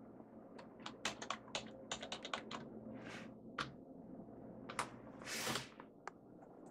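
Computer keyboard keys being typed: a quick run of sharp clicks, then a few scattered key presses. A short hissing rustle comes about five seconds in.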